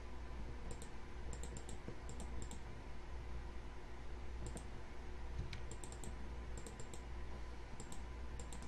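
Computer mouse clicking in quick groups of two to four, a group every second or so, over a low steady hum.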